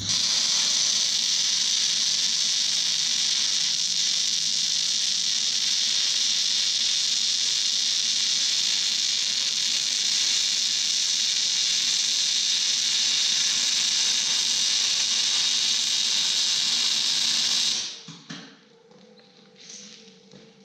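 MIG welding arc on category 3 tractor hitch hooks: a loud, steady hiss that starts suddenly and cuts off abruptly about 18 seconds in when the trigger is released.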